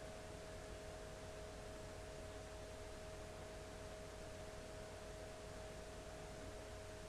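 Faint steady hum made of two held tones, one a little higher than the other, over a low even hiss; no stirring or sizzling stands out.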